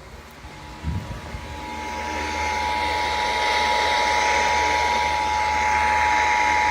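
Emergency Alert System attention signal: two steady tones sounding together (853 and 960 Hz), over a hiss of radio static. Both fade up over the first few seconds, with a low thump about a second in.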